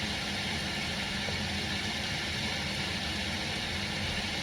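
Steady sizzling hiss of carrots and peppers cooking in a Dutch oven, with a low hum underneath.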